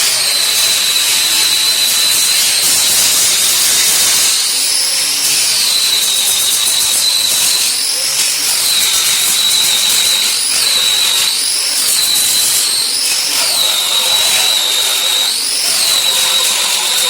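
Angle grinder running continuously, its disc grinding the edges of a cut steel sheet clean. The motor's high whine rises briefly in pitch several times as the disc comes off the metal, then sags back under load.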